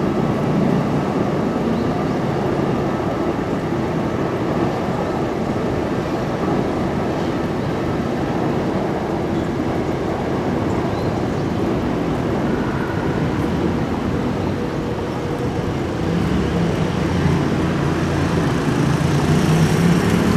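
Steady noise of busy road traffic. A heavy vehicle's engine hum grows louder over the last few seconds.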